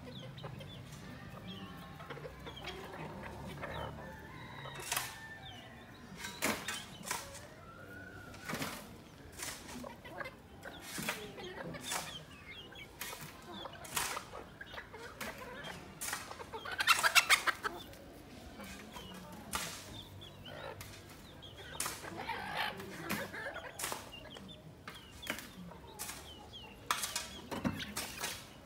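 A flock of chickens clucking and calling as it forages, with sharp clicks scattered throughout. A little past halfway, one louder call lasts about a second.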